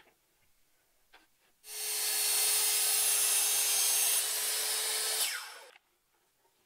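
Circular saw starting up and cutting through wood for about three and a half seconds, then switched off, its pitch falling as the blade spins down. A short click comes just before, as the guide board is set down.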